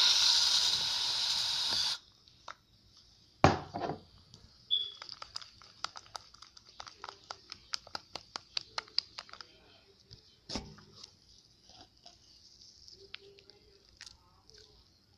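Slime being shaken and squeezed in a container, giving a long run of small sharp pops and clicks, several a second, that thin out and fade near the end. It starts with about two seconds of loud rushing handling noise close to the microphone.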